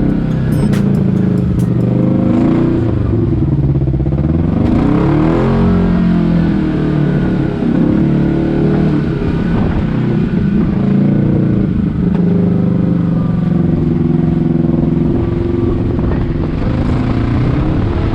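Kawasaki Teryx KRX 1000 side-by-side's parallel-twin engine running while driving, its pitch rising and falling with the throttle, with wind buffeting the microphone.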